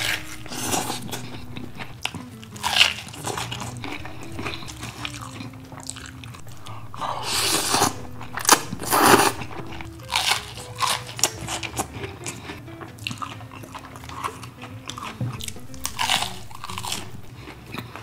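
Crunchy bites and chewing of battered deep-fried salmon, close to the microphone: a run of crisp crackles with the loudest crunches about seven to nine seconds in.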